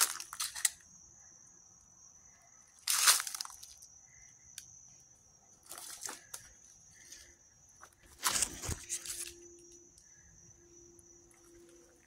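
Footsteps crunching through dry fallen leaves and twigs, coming irregularly, with the loudest crunches about three seconds in and again around eight to nine seconds in.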